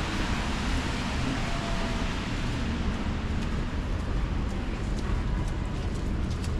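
City street traffic on wet pavement: a car's tyre hiss fading away over the first couple of seconds, over a steady low rumble of traffic, with faint light ticks in the second half.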